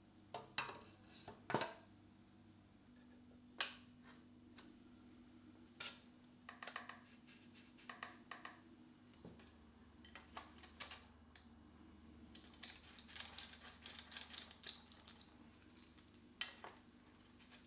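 Scattered clicks and light metallic clinks of bicycle headset parts being handled and fitted: spacers and the stem slid onto the fork's steerer tube. A run of quick small clicks comes about three-quarters of the way through, over a faint steady low hum.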